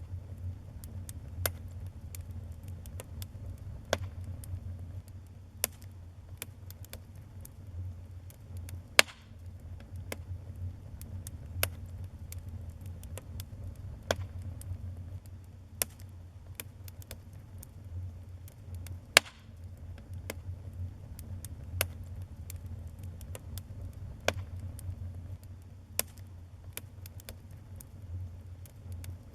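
Wood fire in a fireplace crackling: irregular sharp pops and snaps, two of them much louder, about a third and two-thirds of the way through, over a steady low rumble.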